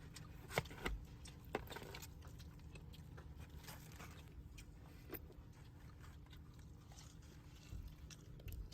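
Someone biting and chewing freshly baked bread close to the microphone, with scattered small clicks and a few sharper ones in the first couple of seconds.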